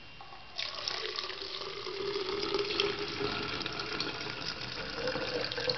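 Water poured from a cup into a clear fruit-infuser water bottle, starting about half a second in and running steadily, its tone rising slowly as the bottle fills.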